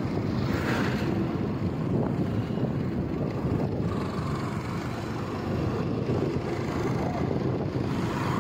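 Steady rumble and noise of a vehicle on the move.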